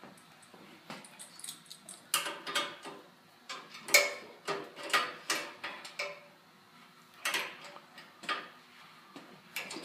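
Irregular metallic clicks and knocks of an adjustable wrench and lighting-fixture hardware being worked by hand, a dozen or so scattered hits with short gaps.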